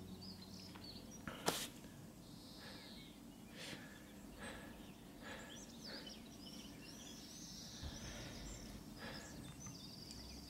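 Quiet outdoor ambience with small birds chirping now and then, and one sharp click about a second and a half in.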